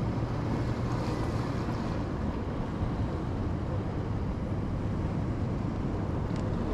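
Steady rushing wind on the microphone, with a flickering low rumble and no distinct events.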